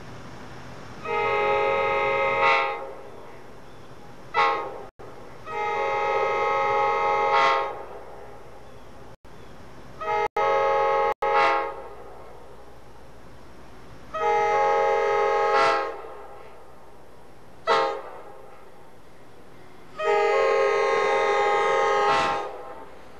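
AEM-7 electric locomotive's air horn sounding a chord of several notes, blown again and again in long and short blasts as the train approaches a grade crossing: its crossing warning.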